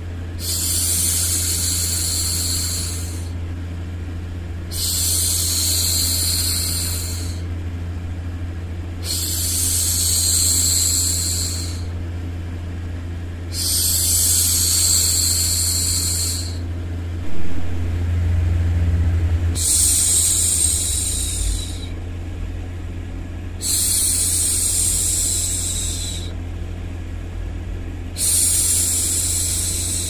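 A woman's voice hushing 'shhh' in long, even strokes of two to three seconds each, seven in all, with a short pause between them. Under them runs a steady white-noise bed with a low hum.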